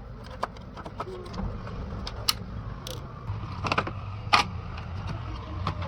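Scattered metallic clicks and knocks of hand tools and parts being handled while an air-conditioner blower motor is taken out, the sharpest about two and four seconds in, over a low steady hum.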